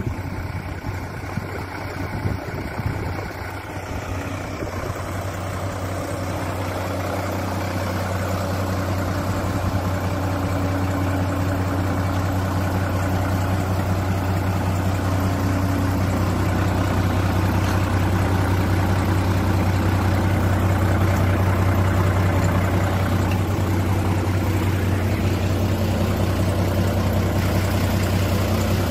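Mitsubishi Fuso Fighter dump truck's 6D17 inline-six diesel engine idling steadily, growing gradually louder.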